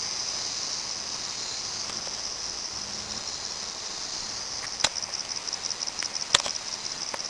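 Steady high-pitched insect chorus that takes on a fast, even pulsing about halfway through. Two sharp clicks stand out near the end, the second the loudest.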